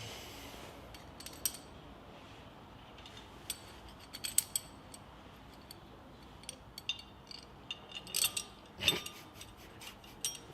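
Hand tools clicking and clinking on metal in irregular small ticks while a bolt is worked loose, with a louder clank about nine seconds in.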